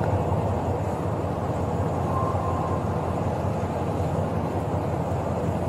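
Steady low rumbling background noise with no speech.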